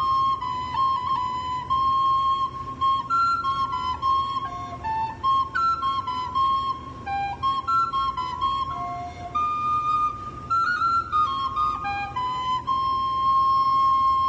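A small end-blown fipple flute with a wooden body playing a slow melody of clear, held single notes, with a few brief dips to lower notes and a long held note near the end.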